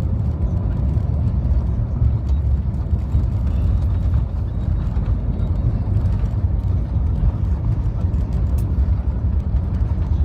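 Airbus A350-900 cabin noise: a steady low rumble of the engines and airflow heard from inside the passenger cabin, with a few faint ticks.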